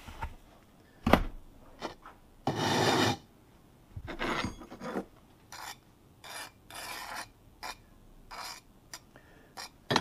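Shell core sand being scooped and poured into a metal shell core mould, then swirled inside it to fill the threads: a knock about a second in, a long sandy pour a couple of seconds later, then a run of short gritty swishes.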